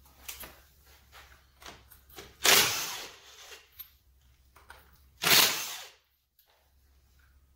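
Cordless impact wrench hammering lug nuts loose on a car wheel in two short bursts, about three seconds apart, with small clicks of the socket between.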